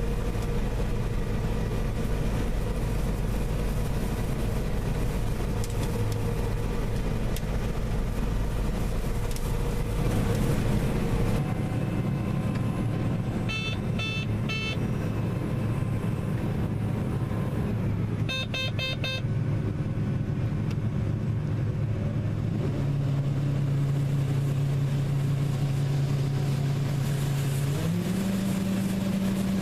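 Engine of a farm harvest vehicle running steadily, its hum stepping up in pitch a couple of times in the second half. Short electronic beeps sound, three together about halfway through and a quicker run a few seconds later.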